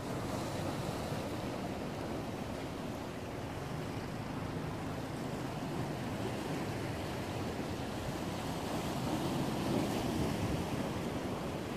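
Sea surf washing against a concrete tetrapod breakwater, a steady rush of waves with wind buffeting the microphone. It swells a little near the end.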